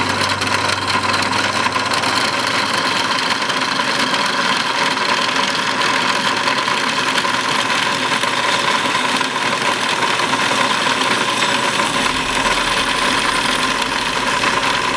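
Drill press running steadily with a constant whine, drilling the stop pin hole through a folding knife's scales and blade.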